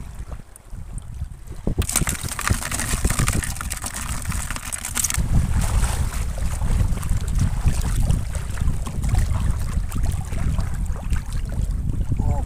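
Shallow seawater splashing and sloshing around wading legs, with a stretch of bright, hissing splashing a couple of seconds in. From about five seconds in, wind rumbles on the microphone.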